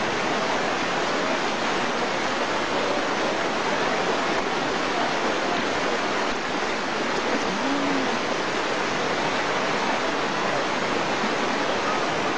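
Floodwater rushing, a steady noise that stays even throughout.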